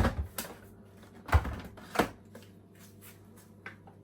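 A blender's lid and jug being handled and set in place, giving a few clicks and knocks: a cluster at the start, two sharp knocks about a second and a half and two seconds in, and a faint click near the end.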